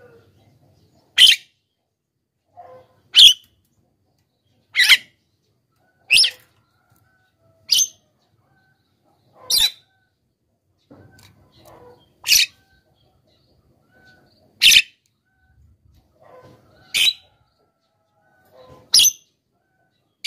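Javan myna (jalak kebo) giving short, sharp, loud calls about every two seconds, ten in all, with a few soft quiet notes between them.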